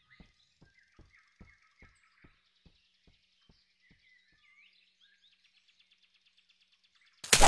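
Cartoon soundtrack forest ambience: faint bird chirps and a run of faint light ticks, about two to three a second, that fade out about halfway through. Near the end, a sudden loud noisy burst lasting under a second.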